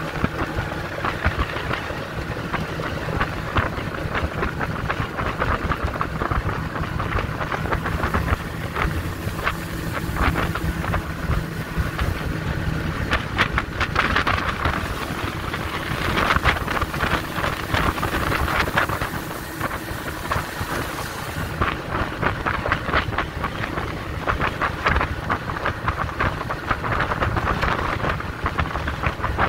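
Small boat running under outboard power: a steady low engine tone under heavy wind buffeting on the microphone and rushing water noise.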